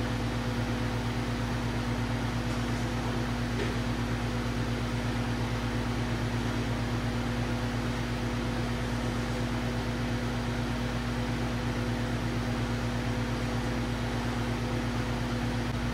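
Steady hiss of an oxy-acetylene torch flame heating copper for silver soldering, over a constant low mechanical hum.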